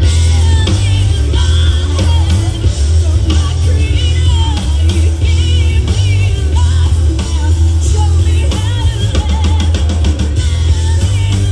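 Live rock band playing loud: a woman singing over electric guitar, bass guitar and drum kit, with a heavy low bass.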